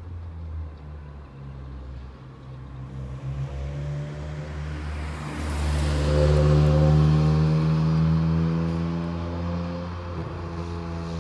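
A car passes close by and drives away down the street, its engine and tyre noise swelling to the loudest point about six seconds in and then fading. A low engine hum runs underneath.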